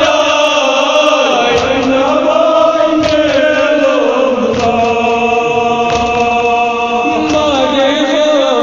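Voices chanting a Kashmiri nohay, a Muharram lament, in long wavering melodic lines.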